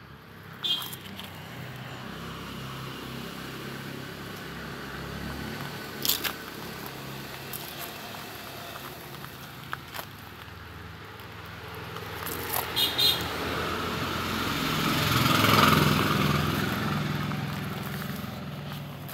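A motor vehicle passing: a steady engine hum with road noise that slowly swells to a peak near the end, then fades. A few sharp clicks come along the way.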